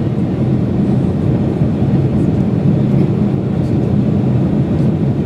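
Airliner cabin noise heard from a passenger seat: a steady, loud, low rumble.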